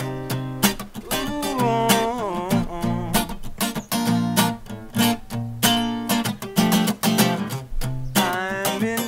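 Steel-string acoustic guitar strummed in a steady rhythm, with a short wordless sung line gliding over it about a second in and again near the end.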